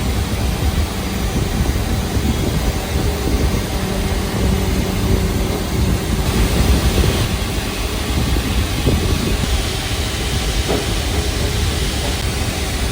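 Steady, loud jet turbine noise with a heavy low rumble and a faint steady hum, from a Boeing 777F's GE90-110 engine start with a jet air starter.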